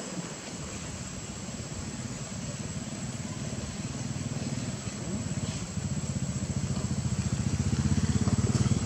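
A motor engine humming low and steadily, growing louder through the last few seconds.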